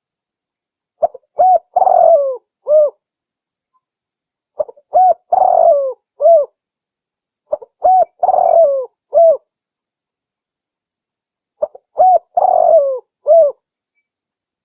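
Spotted dove (cikukur) cooing as a lure call: a phrase of a couple of short coos, a longer rough coo and a closing note, repeated four times about every three to four seconds.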